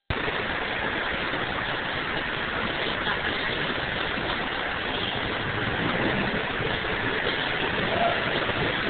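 Steady hissing roar of a gas preheating torch heating the rail ends at the joint before they are welded.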